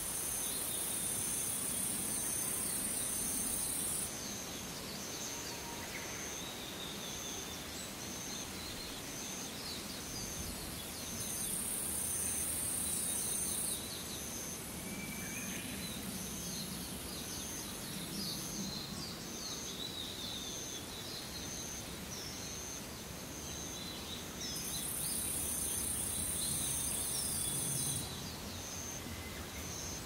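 Forest evening ambience: a high, hissing insect buzz comes in three spells of three to four seconds each. Beneath it a faint chirp repeats about once a second, with scattered short bird calls.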